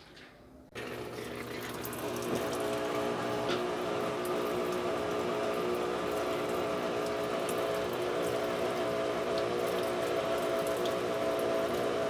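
Whirlpool top-load washing machine starting its spin: about a second in, the motor and drain pump switch on and run with a steady hum and rushing water as the drum begins to turn slowly to spin the water out.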